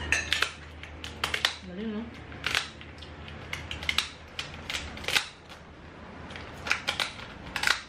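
Hard shells of cooked scorpion lobsters cracking and being snipped open: about ten sharp cracks and clicks at irregular intervals.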